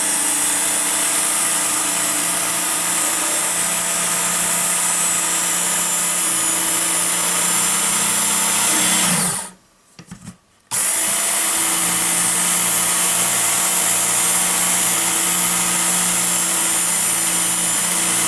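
Work Sharp electric belt knife sharpener running steadily while a knife blade is sharpened on its belt. About nine seconds in the motor is switched off and winds down, and after a second or so of silence it is started again.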